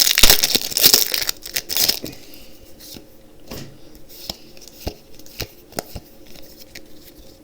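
Foil booster-pack wrapper being torn open, with loud crinkling for about the first two seconds. After that come scattered light taps and rustles as the cards are handled.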